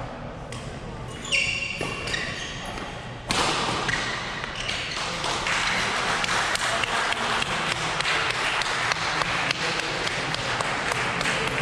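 Badminton court shoes squeaking and the shuttle being hit in the first couple of seconds, then the crowd suddenly breaks into loud, sustained applause at the end of the rally about three seconds in.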